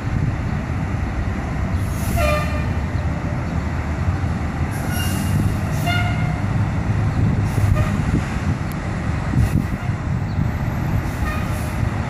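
Fire engine and ladder truck diesel engines running in the firehouse bay, a steady low rumble, with several short high-pitched tones scattered through.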